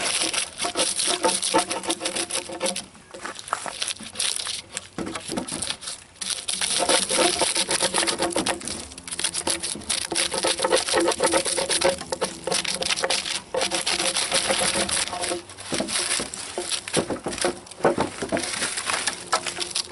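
Bark being torn and scraped off a log by gloved hands: a continuous crackling, tearing rasp with rapid small clicks. The bark has been loosened by boring insects and comes away easily.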